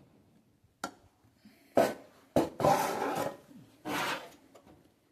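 Handling noise: a faint click, then a sharp knock about two seconds in, followed by two stretches of rubbing and scraping as something is moved and repositioned by hand.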